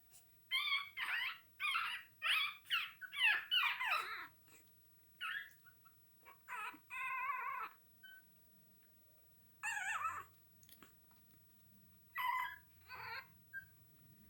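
Young Chihuahua puppies yelping and whining: a quick run of short, high-pitched cries at first, then scattered cries, including one longer whine about seven seconds in.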